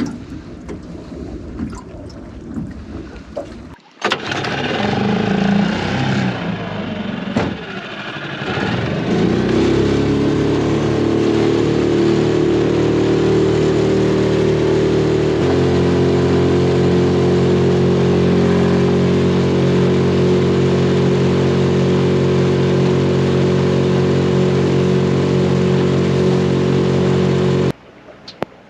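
Wind buffeting the microphone, then a small boat's outboard motor starts about four seconds in, revs up, and settles into a steady run at speed by about ten seconds, its note shifting once around fifteen seconds. The sound cuts off abruptly near the end.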